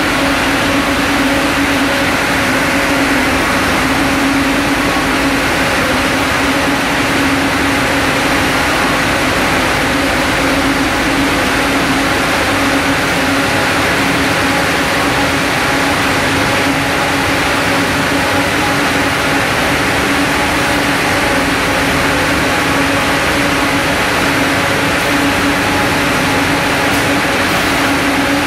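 Ring spinning frames running: a steady, loud machine drone with a low hum and an even hiss.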